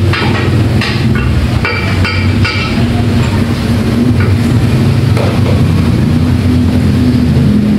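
Yamaha NMAX scooter's single-cylinder engine running steadily on the stand with the CVT side open, test-run with a newly fitted final-drive gear set. A few brief clicks come in the first few seconds.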